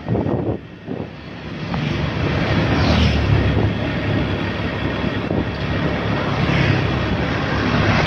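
Motorcycle engine running while riding along a road, getting louder from about two seconds in and then holding steady.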